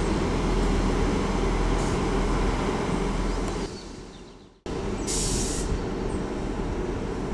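A passing train running steadily, its sound fading away to almost nothing at about four and a half seconds. A different steady rumble then starts abruptly, with a brief high hiss about half a second later.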